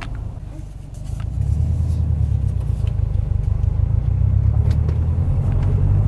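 Low, steady road and engine rumble heard inside a car's cabin while driving on a dirt road, swelling louder about a second in, with a few faint ticks.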